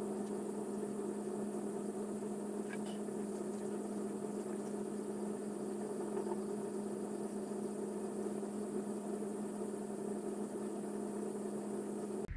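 A steady low hum with a constant tone underneath, even in level throughout, cutting off abruptly near the end.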